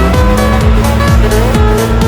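Background music with a steady electronic beat, about two deep kick-drum hits a second under a synth melody.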